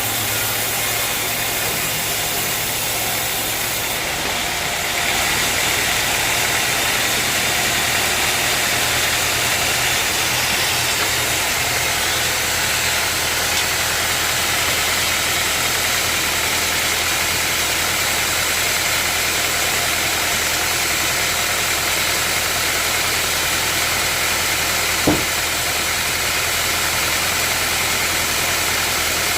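Sawmill machinery running steadily with a constant engine drone and noise, growing a little louder about four to five seconds in. A single sharp click comes near the end.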